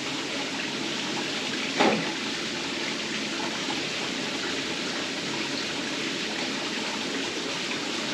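Steady watery hiss of hot water simmering in an electric fry pan set up to steam fish, with one short knock about two seconds in.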